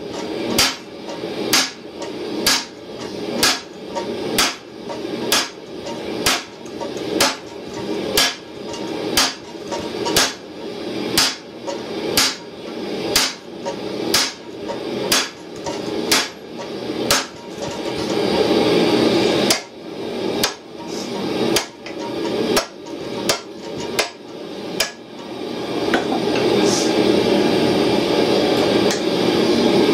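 Hand hammer striking a red-hot steel tow ball on an anvil in a steady rhythm, about one and a half blows a second, as the ball is flattened. The blows break off briefly in the middle and stop a few seconds before the end, where a steady rushing noise takes over.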